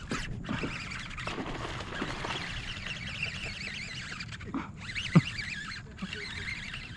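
Baitcasting reel cranked in a steady run of fine clicking and whirring as line is reeled in against a hooked fish, pausing briefly now and then, with one sharp knock about five seconds in.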